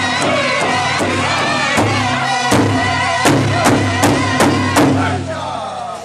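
A powwow drum group of men singing together over a large hide powwow drum, which several singers beat in steady unison at about three strokes a second. About halfway through, a handful of louder, wider-spaced strokes take over, and the singing stops shortly before the end as the song closes.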